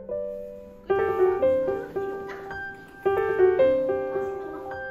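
Background music with a piano melody: groups of notes struck together that ring and slowly fade, with new phrases starting about a second in and again about three seconds in.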